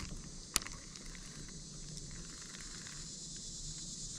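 Faint, steady high-pitched drone of summer insects, with a single sharp click about half a second in.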